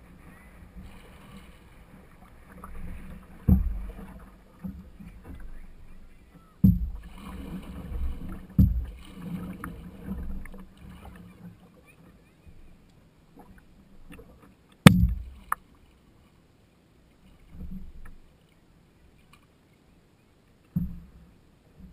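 Water sloshing and lapping against a canoe hull, picked up through a GoPro's waterproof housing mounted near the waterline. Several dull thumps come through, and one sharp knock about fifteen seconds in is the loudest sound; it is quieter towards the end.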